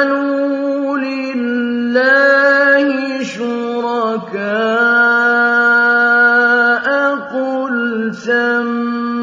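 A male voice chanting Quranic Arabic in slow, melodic tajweed recitation. He holds long, steady drawn-out notes and links them with brief ornamented pitch turns.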